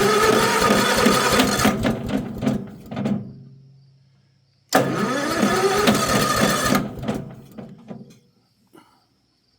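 Small engine being cranked by an electric starter in two tries, one of about three seconds and one of about three seconds, each starting with a rising whine as the starter spins up and then winding down; the engine turns over with a quick pulsing but does not catch.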